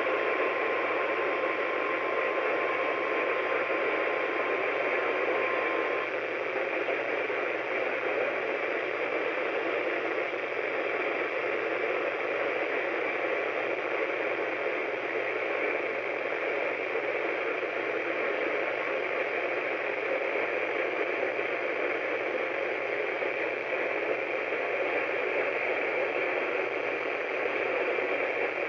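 Steady hiss of static from a weather radio receiver on a weak NOAA Weather Radio signal. A faint steady tone runs under the static and stops about six seconds in.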